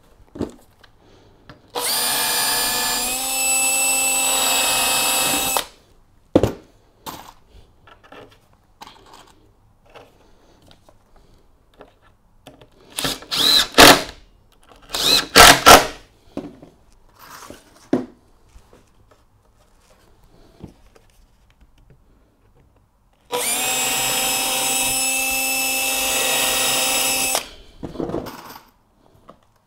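Cordless drill-driver running in two steady bursts of about four seconds each, its whine stepping down in pitch partway through each, driving screws through the stair treads. Between the bursts comes a cluster of sharp knocks and clatter.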